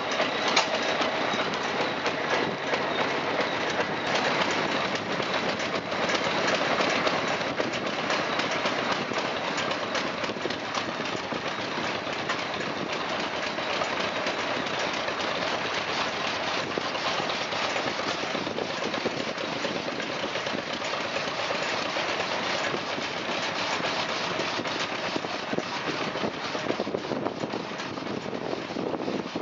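An 1891 Ireland straight-line drag saw running, its reciprocating mechanism driven by a belt from a small tractor engine, with a fast, even mechanical clatter that keeps a steady level throughout.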